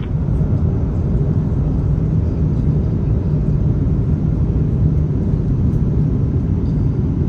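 Steady in-flight cabin drone of an Airbus A350-900: a low, even rumble of its engines and the airflow over the fuselage.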